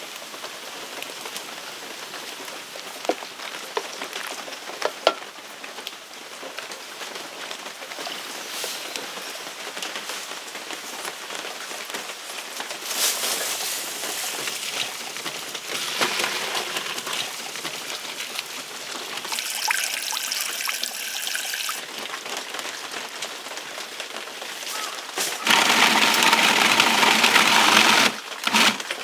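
Deer meat sizzling as it fries in a pan, giving off a lot of blood and liquid as it cooks. There are a few light clicks, and about 25 seconds in a much louder rush of hissing lasts for a couple of seconds.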